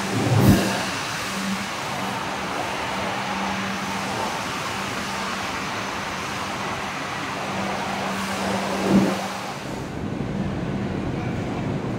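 MTR Light Rail Phase 5 light rail vehicle moving off along the platform: a steady electric hum over rolling and running noise, with a low thump just after the start and another about nine seconds in.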